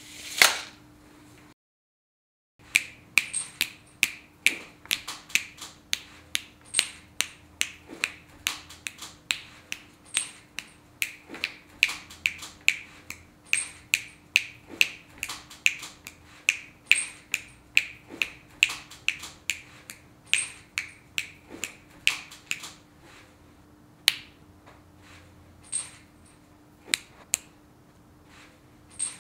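Finger snaps in quick succession, two or three a second in an uneven, overlapping rhythm, thinning to a few scattered snaps over the last several seconds. A steady low hum runs underneath, broken by a second of dead silence about two seconds in.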